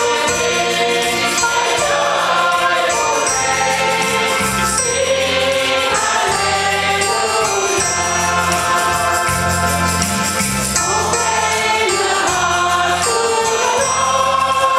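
A choir singing a Christian worship song over instrumental backing, with a steady bass line and a fast, even ticking beat.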